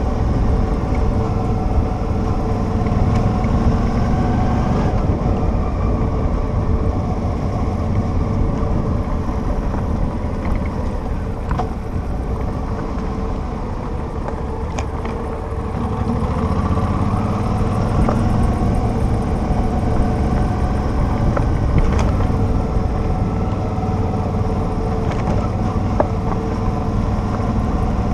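Motorcycle engine running under way, heard from on board the bike over a rough, potholed dirt road. It runs quieter for several seconds in the middle and picks up again about sixteen seconds in, with a few sharp clicks and knocks.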